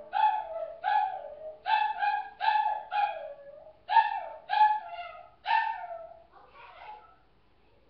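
Dog 'singing': a quick run of short yowling cries, about two a second, each sliding down in pitch, growing fainter and dying away near the end.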